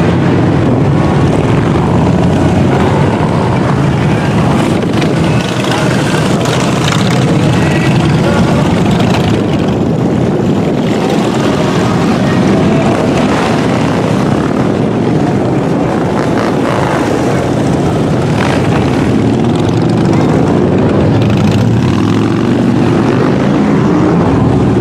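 A large group of motorcycle engines running together, loud and steady.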